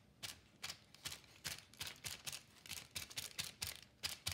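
Crumpled wax paper dabbed repeatedly onto wet paint on paper, a soft crinkly tap about two or three times a second.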